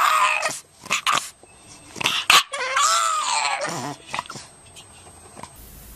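A dog giving two drawn-out, high-pitched cries, the second about a second long and arching up and down in pitch, with scattered clicks and knocks around them.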